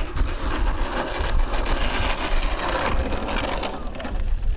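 Electric motor and propeller of a SebArt Miss Ultimate 50E model biplane running at low throttle while it taxis on tarmac: a steady, noisy whirr over a low rumble.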